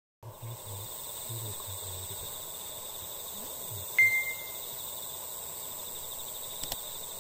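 Insects, crickets by their sound, chirping steadily in a fine pulsing trill. A single bright chime rings out about four seconds in and fades quickly, and a soft click comes near the end.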